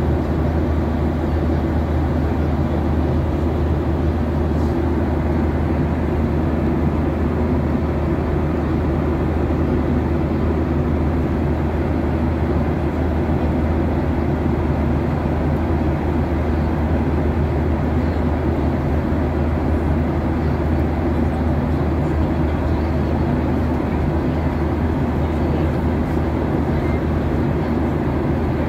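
Steady cabin noise inside a Boeing 737-800 at cruise: an even low drone of airflow over the fuselage and its CFM56-7B engines, unchanging throughout.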